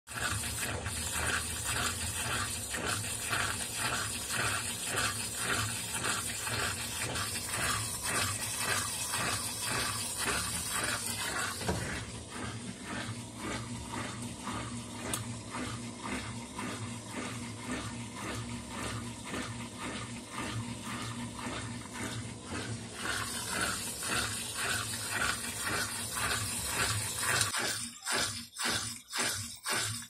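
Consul Cargo 8 kg top-loading washing machine running with a load of blankets: water running and sloshing in the tub with an even pulse about twice a second. The drum has not yet started its spin.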